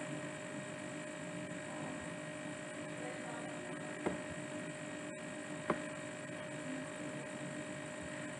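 Steady electrical hum with a faint hiss, and a few short clicks, about four and six seconds in.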